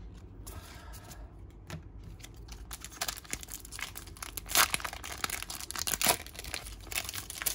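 Foil Pokémon booster pack being torn open by hand: crinkling and a quick run of sharp tearing crackles from about two and a half seconds in, loudest in the middle.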